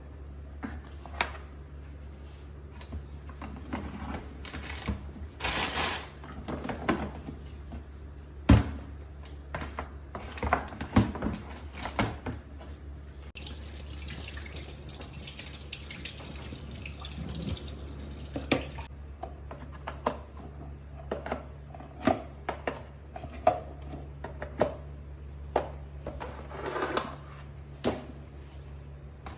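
Kitchen tap running into a sink in two spells, the longer one midway, with repeated knocks and clatters of things being washed and handled. A steady low hum runs underneath.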